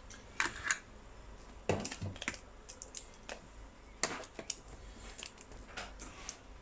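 Hands handling small plastic and metal parts on the plastic tray of an EV battery power distribution unit: irregular light clicks and taps as pieces are picked up, set down and worked on.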